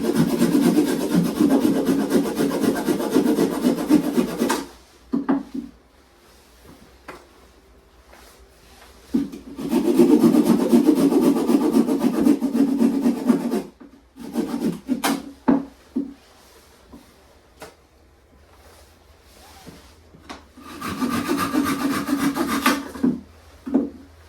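Rough rasping scrape on wood, in three long spells of a few seconds each, with a few short knocks between them.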